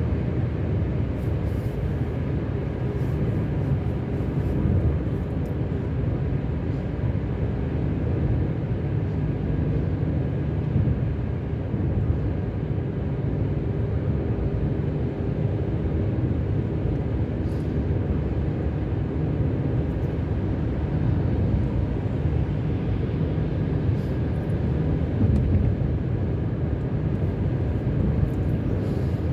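Car driving at motorway speed, heard from inside the cabin: a steady low drone of tyre and engine noise.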